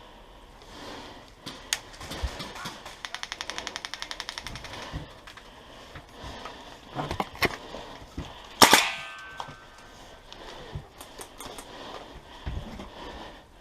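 Airsoft guns firing: scattered single shots, and about three seconds in a full-auto burst of about ten shots a second lasting some two seconds. The loudest sound is a single sharp crack with a brief ringing tail, a little past the middle.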